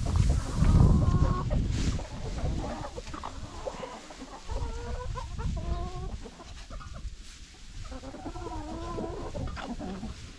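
A flock of backyard chickens clucking and calling, many short overlapping calls throughout. A low rumble is loudest over the first two seconds.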